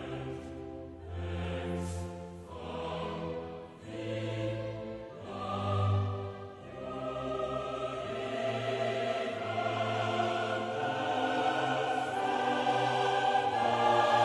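Background music with sustained choir-like voices over orchestra, in slow swells that build steadily louder through the second half.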